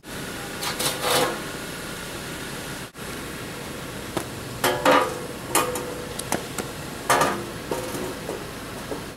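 Plastic drive-on car ramps being set down and shifted on pavement: a string of hollow clunks and knocks, the loudest about five seconds in and again just past seven seconds.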